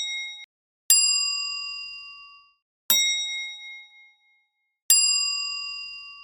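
Three bright bell-like chime strikes about two seconds apart, each ringing with several clear tones and fading out over a second or so.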